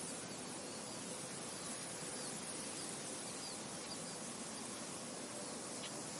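Steady wind noise, even and unbroken, with a few faint, short high-pitched bird chirps scattered through the first two-thirds.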